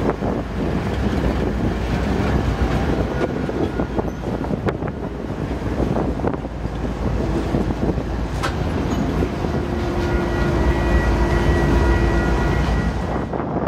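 Two GE ES44AC diesel-electric locomotives passing close by: a heavy low engine rumble, with the wheels clacking over the rails. A steady tone sounds over it for a few seconds near the end.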